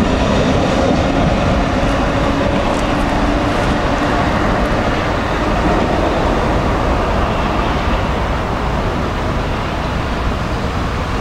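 Vintage tram rolling past on street tracks, its motor hum and wheel noise fading in the first few seconds into steady road and rail rumble.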